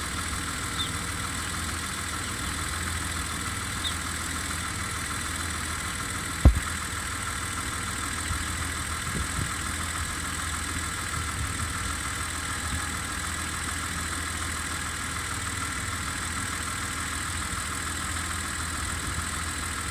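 Steady mechanical hum of a BMW E32 with its systems running, even throughout. A single short thump about six and a half seconds in stands out above it.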